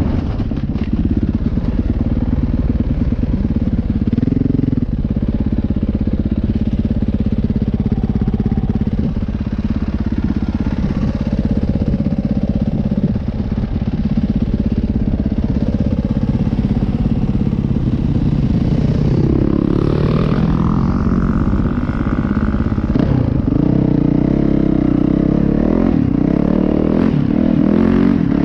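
Dirt bike engine running under load while riding a rough trail, the revs rising and falling with the throttle, with a marked rev rise and drop about two-thirds of the way in.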